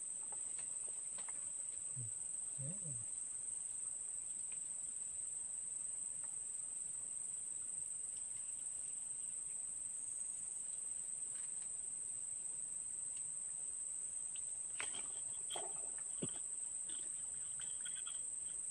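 Steady, high-pitched drone of insects calling without a break, with a few faint clicks near the end.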